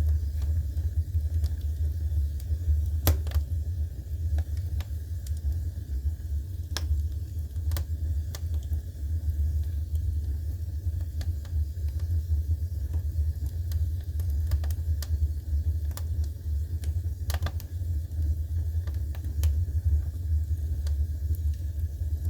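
Wood furnace with a steady low hum and irregular sharp pops and crackles, typical of a wood fire burning in the firebox.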